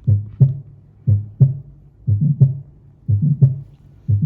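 Heartbeat heard through a stethoscope during heart auscultation: paired lub-dub beats repeating steadily about once a second.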